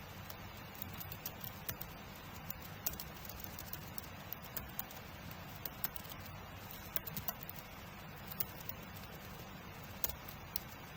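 Typing on a computer keyboard: irregular key clicks, several a second with uneven pauses, over a steady background hiss.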